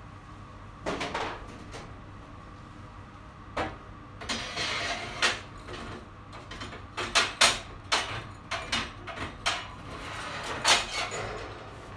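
Glass crucibles clinking and a metal loading tray scraping across a steel bench as the crucibles are handled, in a run of sharp clinks and rubs that comes thickest about seven to eight seconds in.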